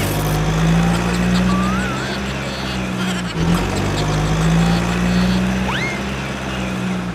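A steady low vehicle engine drone that breaks off briefly about three and a half seconds in and picks up again. It plays over background music with short rising whistle-like glides.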